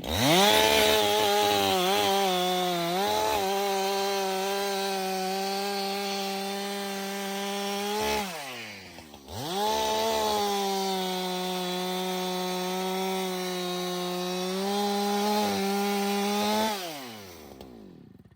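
Two-stroke chainsaw with a freshly sharpened chain cutting through wood twice. The engine is held at full revs for about eight seconds each time, dipping slightly under load, and drops back to a falling idle between the cuts and again near the end.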